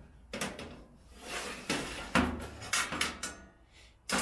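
Metal toaster-oven accessories (trays, racks, tray lifter) being handled and set in place: a series of knocks and clicks, with a brief scraping slide about a second in.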